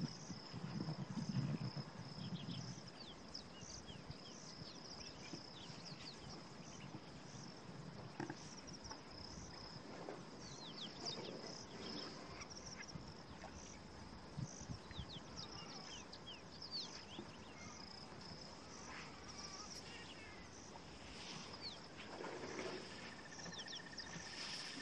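Faint bush ambience: insects chirring in a steady, evenly pulsing high trill, with scattered short, quick bird chirps. A low rumble is heard in the first two seconds.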